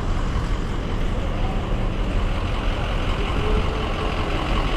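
Steady rumble of large off-road tour vehicles and trucks idling, with faint voices in the background.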